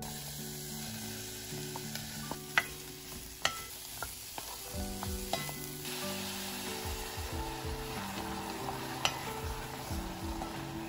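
Food sizzling in a hot pan while it is stirred, with a few sharp clicks of the utensil striking the pan.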